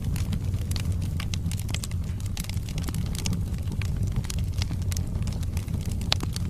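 Wood fire in a fireplace, burning logs crackling and popping irregularly over a steady low rumble of the flames, with one sharper pop about six seconds in.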